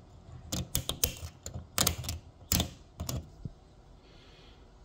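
A blade scraping the metal burner base beside a gas cooktop's spark igniter: about eight short, irregular scrapes over the first three and a half seconds. It is cleaning built-up grime off the surface the igniter's spark should jump to.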